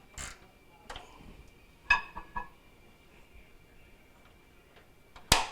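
Scattered clicks and light knocks of the plastic handle cover and its screw being fitted back onto a microwave door handle, the loudest a single sharp click near the end.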